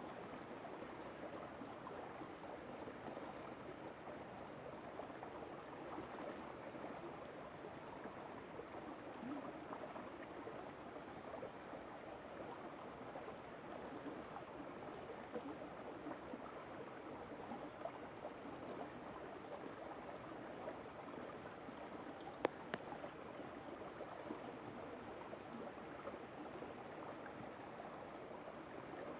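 River water flowing in a steady, even rush. A single sharp click comes about 22 seconds in.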